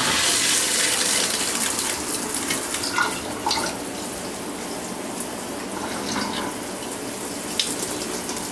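Water rushing steadily from a Delta tub-and-shower mixing valve that has just been opened, flushing the lines after a new cartridge was fitted; the flow comes on all at once at the start.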